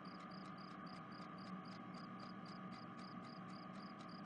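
Night-time cricket ambience: a cricket chirping steadily, about four high chirps a second, over a faint steady hum.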